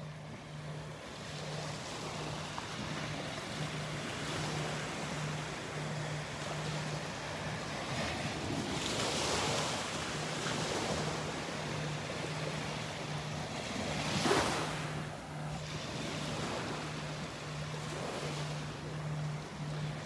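Surf washing up on a sandy beach, with wind on the microphone; the waves swell around the middle and one breaks loudest about fourteen seconds in.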